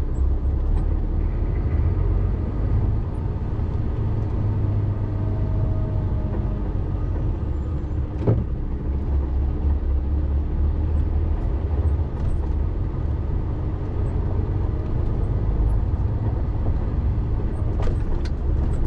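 Class one articulated lorry on the move, heard from inside the cab: the diesel engine and road noise make a steady low rumble. A single sharp click comes about eight seconds in, and a few more near the end.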